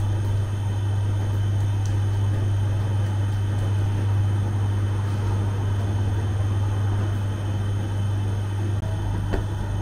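Bread oven running: a steady low hum under an even rushing noise, with a light tap near the end.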